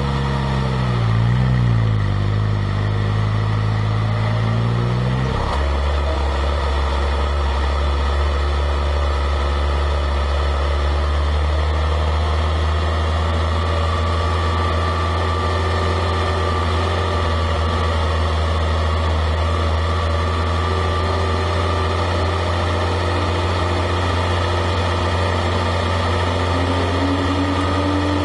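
A car's engine: the revs rise and fall for the first few seconds, then about five seconds in the note drops suddenly to a steady low running drone that holds nearly unchanged.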